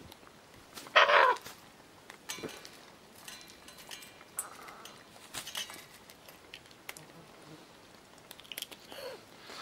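Scarlet macaws feeding from steel bowls of seeds and nuts. Scattered small clicks and cracks come from beaks on the seeds and bowls, and one short, loud, wavering call sounds about a second in.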